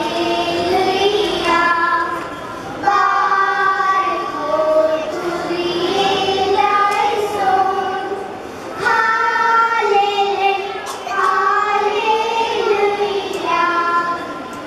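A group of children singing a song together, in sung phrases with short breaks between them.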